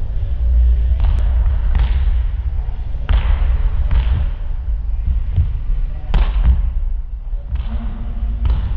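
Volleyballs being hit on serves and landing on the hardwood gym floor: about six sharp smacks and thuds, a second or two apart, each echoing in the gym, over a steady low hum.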